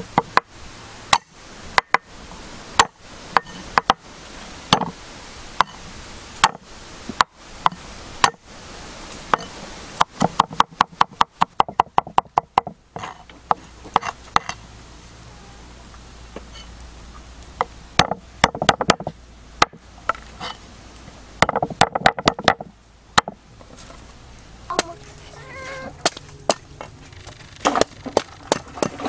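Knife chopping food: irregular single strokes, with a fast run of quick chops about a third of the way in and further clusters of chops later.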